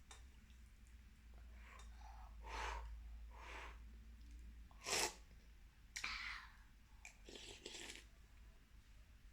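Eating noises of a child eating noodles: a few short, noisy slurps and breaths at the mouth, the loudest about five seconds in.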